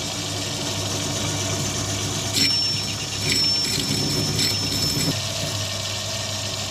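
Metal lathe running, parting off a new bronze small end bush from its stock. About two and a half seconds in, the cutting tool bites with a high, steady squeal and chatter, which stop about five seconds in as the bush comes free; the lathe's motor runs on.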